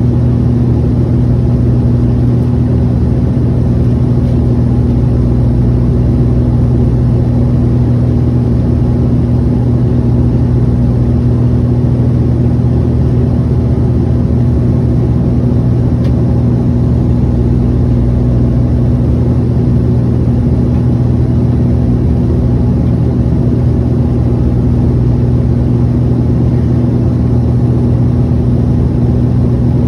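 Turboprop airliner's engine and propeller droning steadily in cruise, heard from inside the passenger cabin beside the propeller: a constant low hum over an even rush of airflow.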